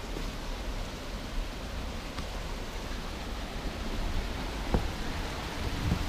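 A small stream running: a steady rushing hiss, with two faint clicks partway through.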